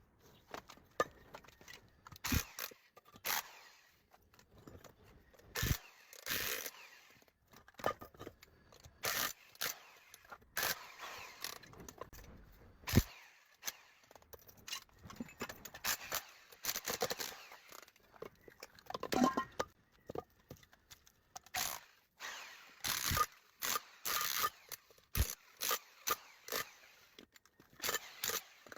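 Irregular metal scraping and sharp knocks as a scrap electric motor is taken apart with hand tools to strip out its copper.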